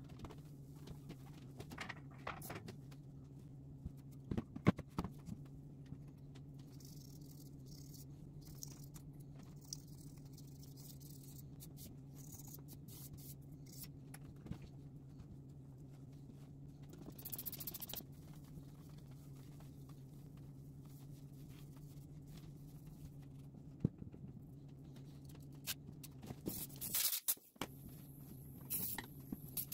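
A steady low hum under light handling sounds on a plexiglass sheet: scattered knocks, a brief rubbing of a cloth across the sheet about two-thirds of the way in, and a cluster of clattering knocks near the end as a sanding disc is picked up and handled.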